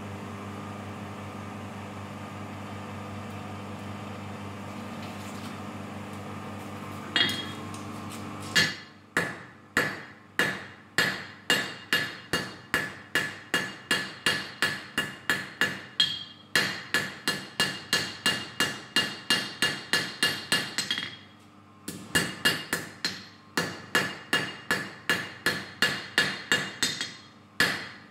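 Hand hammer forging a hot steel knife blank on an anvil: rapid ringing blows, about three a second, with a short pause about two-thirds of the way through. Before the hammering begins there are several seconds of steady mechanical hum and a single knock.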